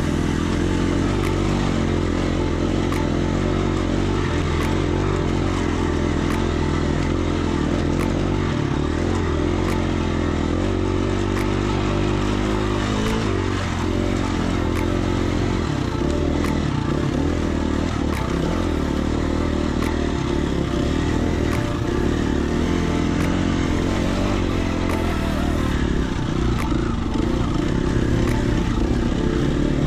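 Dirt bike engine running steadily under way on a trail, its pitch shifting up and down with the throttle, with scattered clattering ticks over it.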